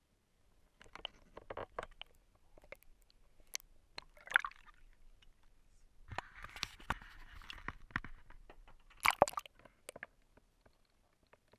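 Water splashing and sloshing around a GoPro in its waterproof housing as it breaks the lake surface and goes back under, with sharp clicks and knocks from the housing being handled. A noisy wash of water runs for about two seconds midway, and the loudest splash comes near the end.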